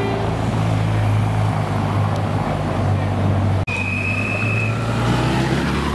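Steady low engine hum of motor vehicles. A little over halfway through, the sound drops out for an instant, and a high steady tone follows for about a second.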